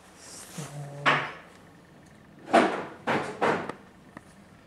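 Parts of a stripped-down rotary hammer being handled and set down on a workbench: a scrape about a second in, then three short knocks and scrapes in quick succession.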